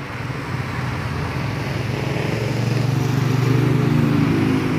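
A motorcycle riding past on the road. Its engine hum grows louder to a peak about three and a half seconds in, then eases off slightly as it goes by.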